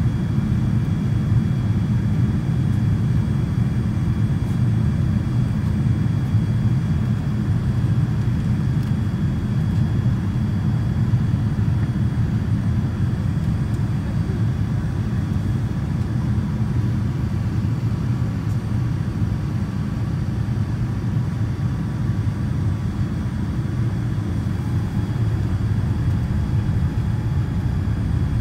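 Steady cabin noise inside a Boeing 787-9 Dreamliner on its descent: a low, even rumble of engines and airflow, with faint steady tones above it.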